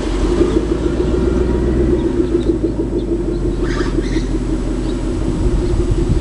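2011 Ford Mustang GT's 5.0-litre V8, fitted with a resonator delete and a Shelby GT500 exhaust, giving a steady low exhaust note as the car cruises away at about 25 mph.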